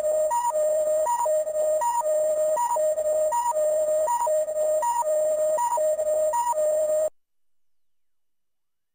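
Zoffy Hyper Key toy playing an electronic two-tone beep loop: a low tone held about half a second, then a short higher tone, repeating about every three-quarters of a second. It cuts off suddenly about seven seconds in.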